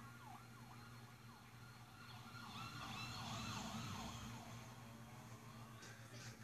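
California Highway Patrol car's siren in yelp mode, a fast rise-and-fall wail that grows loudest about three to four seconds in as the cruiser passes, over a steady low hum.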